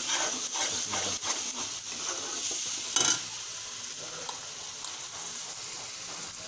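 Onion, garlic and green-chilli masala paste sizzling as it fries in hot oil in a metal kadhai, with a spatula stirring and scraping through it. A sharper knock comes about three seconds in.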